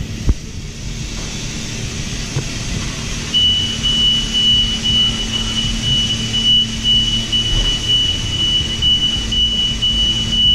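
2017 Honda Civic Type R's turbocharged four-cylinder engine running with a steady low rumble. About a third of the way in it gets louder, and a thin, steady high-pitched beep-like tone comes in and keeps going.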